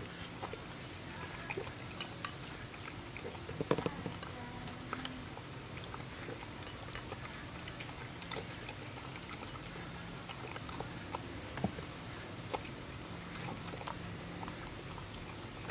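Pembroke Welsh Corgi eating raw food from a stainless steel bowl: wet chewing and lapping, with many small clicks of teeth and tongue against the bowl and a louder run of clinks about four seconds in.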